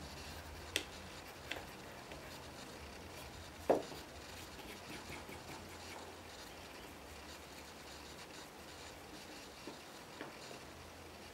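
Light handling sounds of wood on a workbench: a few small clicks and one louder wooden knock about three and a half seconds in, over a low steady hum.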